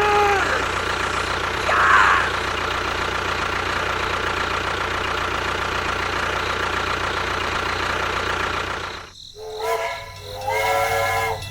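A small engine running steadily, then cut off suddenly about nine seconds in, followed by music with held notes.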